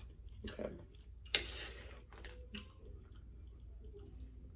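A fork clicking and scraping against a plate as food is picked up and handled: a few light clicks, with a sharper one about a second and a half in.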